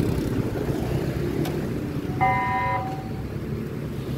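Steady rumble of street traffic, with one short vehicle horn honk lasting about half a second a little past the middle.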